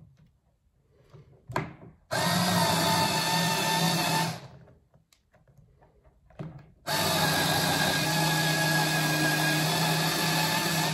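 Cordless drill with a countersink bit running steadily in two stretches, about two seconds and then about four seconds, countersinking a screw hole in the sole of a roller skate boot. The second run cuts off suddenly at the end.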